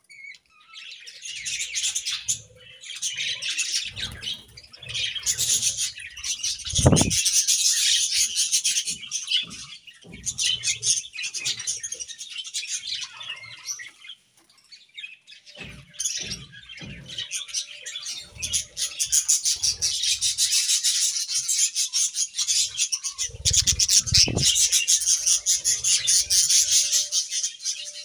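A flock of budgerigars chirping and chattering continuously in a busy, fast warble, with a few low thumps among it.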